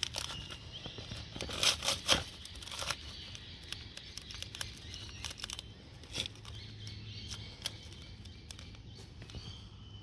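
Crackling and tearing from handling the opened stingless bee hive, with scattered sharp clicks and a louder cluster of them about two seconds in.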